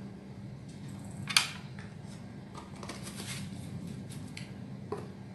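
Kitchen spoon handling powder: light scraping and tapping as collagen powder is measured into a bowl, with one sharp clink about a second in and a softer one near the end, over a steady low hum.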